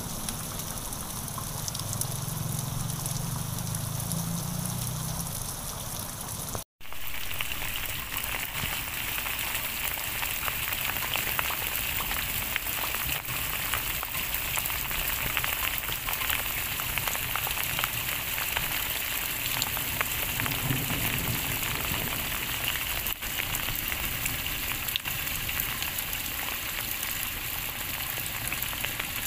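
Heavy rain falling steadily on a muddy road and surroundings, a dense hiss of drops, cutting out for a moment about seven seconds in.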